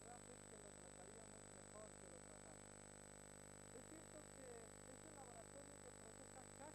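Near silence on a VHS tape transfer: a faint steady hum and hiss with a thin steady high whine, and faint scattered wavering tones.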